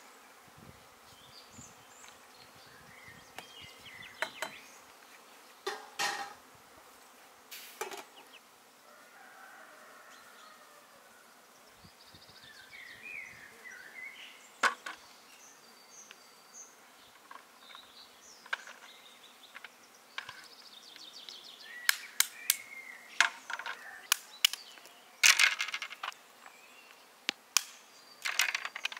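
Scattered sharp clicks and knocks, a few in the first half, then coming thick and fast in the last seven seconds, over a faint outdoor background with short high calls.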